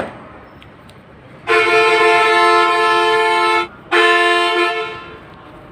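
A horn, likely a vehicle's, sounding twice: a long blast of about two seconds, then a shorter one after a brief break.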